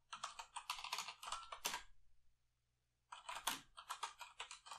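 Typing on a computer keyboard: quick runs of key clicks, with a short pause a little past the middle before the typing resumes.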